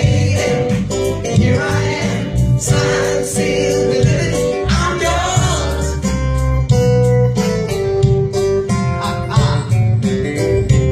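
Band music with a singer and guitar over a steady bass line.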